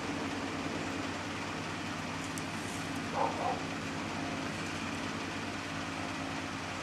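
Steady low machine hum with a hiss, like a room air conditioner or fan running, and a brief faint voice-like sound about three seconds in.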